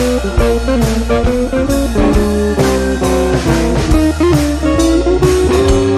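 Background music with a steady beat: a guitar-led blues-rock track with drums.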